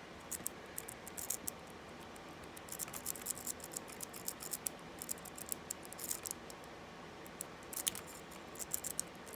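A metal rake pick clicking and scraping in the keyway of an Abus 64TI 30 mm padlock, in short bursts of quick, light ticks as it is worked against the pins. The rake keeps snagging in the keyway.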